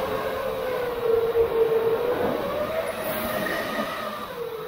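FPV quadcopter's electric motors and propellers whining in flight, the pitch sagging about a second in, rising again and sagging once more near the end as the throttle changes.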